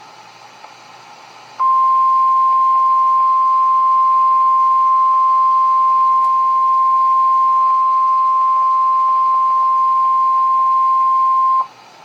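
NOAA Weather Radio's 1050 Hz warning alarm tone sounding ahead of an Emergency Alert System severe thunderstorm warning. It is one steady, loud, high tone lasting about ten seconds, starting about a second and a half in and cutting off sharply near the end, over a faint radio hiss.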